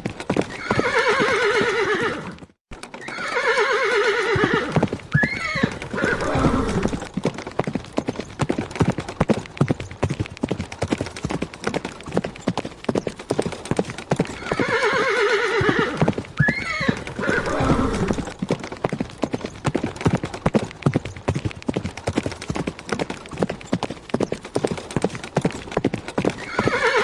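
Hoofbeats of a running horse in a fast, continuous rhythm, with the horse neighing several times over it. The hoofbeats drop out briefly about two and a half seconds in.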